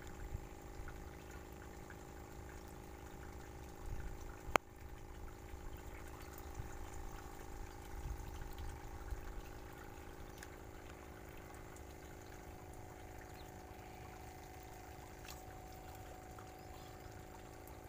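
A steady machine hum over running water, with one sharp click about four and a half seconds in.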